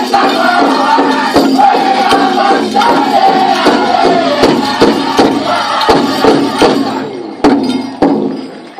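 Powwow drum group singing high-pitched, with a steady beat on a large drum, between two and three strokes a second. About seven seconds in, the singing trails off and a few last separate drum strokes close the song.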